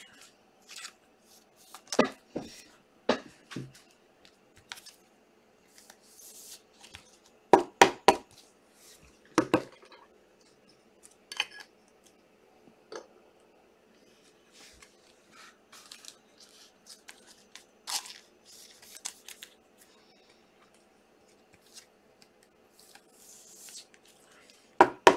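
Trading cards and their packs being handled at close range: scattered sharp taps and clicks of card stock being flipped and set down, with a couple of short papery rustles of a torn wrapper.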